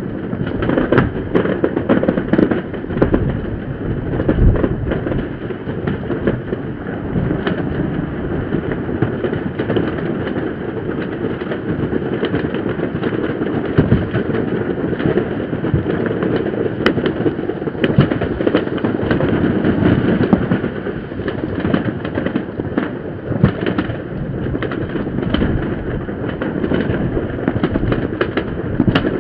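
Many fireworks going off at once across a city, their bangs and crackles merging into a continuous roll, with a few sharper pops standing out here and there.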